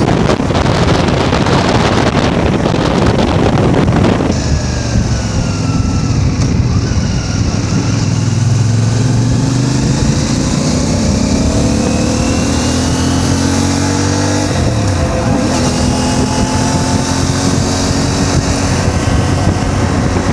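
CF Moto 450MT's parallel-twin engine pulling under acceleration, its pitch climbing, dropping sharply at a gear change about fourteen seconds in, then climbing again. Heavy wind noise on the microphone covers the first four seconds.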